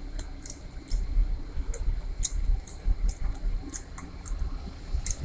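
Low, uneven rumble inside a moving passenger train carriage, with many irregular short clicks and light rattles.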